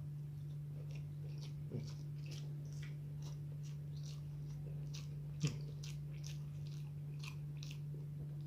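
Close-miked chewing of soft eggplant in chili sauce and omelette: wet mouth clicks and smacks, several a second, over a steady low hum.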